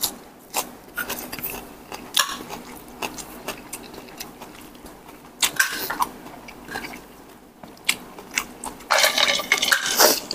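Close-up eating sounds of a spicy frog salad: chewing and biting, with scattered sharp clicks of utensils against dishes.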